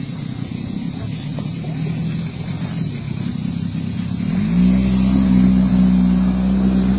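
Boat's outboard motor running steadily, then revving up about four and a half seconds in and holding the higher speed.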